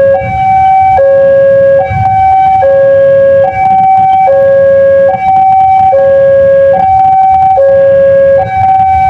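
Railway level-crossing warning siren, a Daop 2 Bandung-type unit, sounding a loud two-tone alarm that swaps between a low and a high tone about every 0.8 seconds, over a low rumble.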